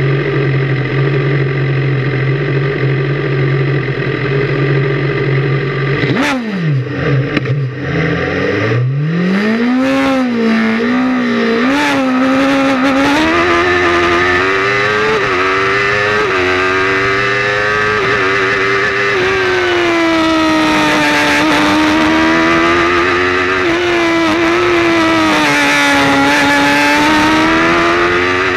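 TracKing RC01b race car's engine heard from inside the cockpit. It holds steady revs for about six seconds, then dips sharply and climbs hard from low revs, with brief drops in pitch as it shifts up. After that it runs at high revs, the pitch rising and falling.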